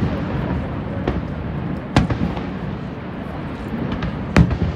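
Fireworks shells bursting: a faint bang about a second in, then loud sharp bangs about two seconds in and again near the end, over a steady background noise.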